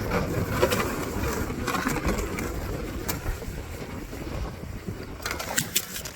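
Wind rumbling on the microphone, with scattered sharp clicks and crunches that come thickest near the end.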